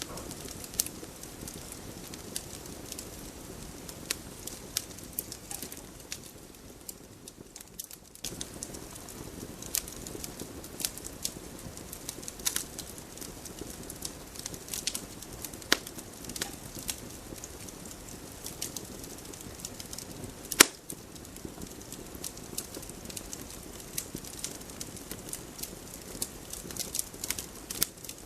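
Wood campfire crackling, with irregular sharp pops from the burning wood over a steady hiss of flames; one much louder pop about two-thirds of the way through.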